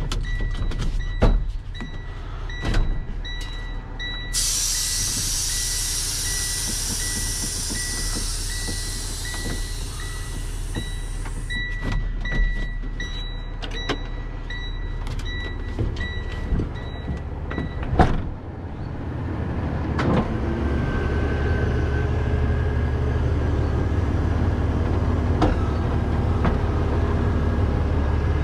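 Truck cab warning buzzer beeping on and off amid clicks and rattles, with several seconds of air hissing in the middle. About 18 seconds in a truck door slams shut, the beeping stops, and a heavy truck engine idles steadily.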